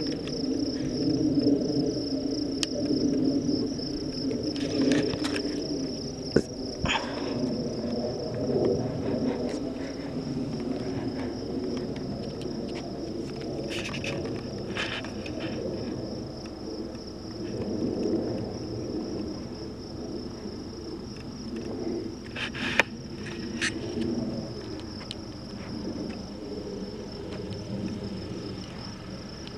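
Insects making one steady, high-pitched drone over a low background rumble, with a few brief clicks.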